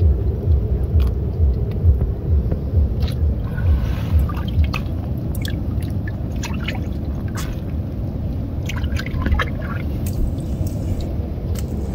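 Small wet splashes and drips as fish are handled on a wet net and dropped into a steel bowl of water, a scatter of short sharp ones between about three and ten seconds in, over a steady low rumble.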